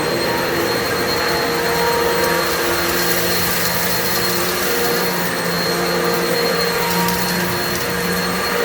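Kenmore Progressive upright vacuum cleaner running steadily at full speed, with a constant motor whine over the rush of air.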